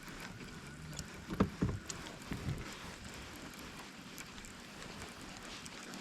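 Small fishing boat on the water: a faint steady hiss with a light click about a second in and a few soft knocks against the hull from about one and a half to two and a half seconds in.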